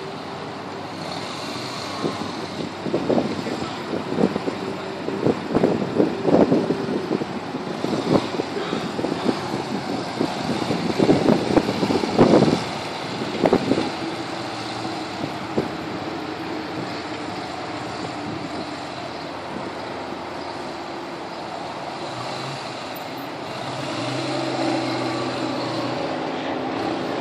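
Yamaha V-Star 250's small air-cooled V-twin engine running as the motorcycle is ridden slowly around a test course. Irregular louder bursts come through between about 3 and 14 seconds in, and the engine grows louder near the end as the bike passes closer.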